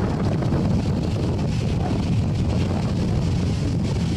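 Wind buffeting the microphone: a steady low rumble with no break.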